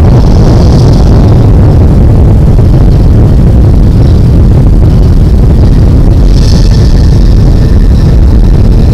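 Very loud, steady low rumble of a nuclear explosion, with a faint hiss above it.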